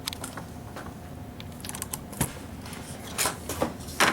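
Cardboard and craft tools being handled at close range: scattered light scrapes and taps, with a few sharper clicks in the second half and the loudest just before the end.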